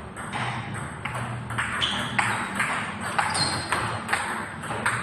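Table tennis rally: the celluloid ball clicks off the paddles and the table in a quick, regular run of sharp ticks, about two or three a second.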